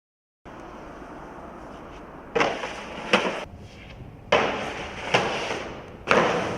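Five sharp knocks about a second apart, each trailing off in a short scraping rush, over a steady hiss. The sound cuts in suddenly about half a second in.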